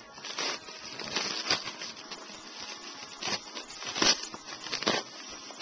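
Plastic bubble wrap being handled and pulled out of a mailing package, crinkling, with a handful of sharp cracks at irregular moments.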